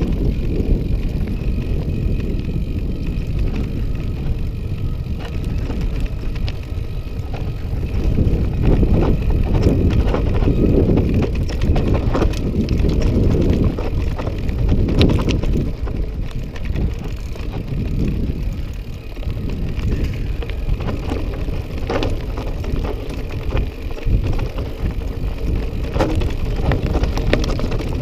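Mountain bike riding a rough dirt track: a steady low rumble of wind on the microphone and tyres on the ground, with scattered sharp clicks and rattles from the bike.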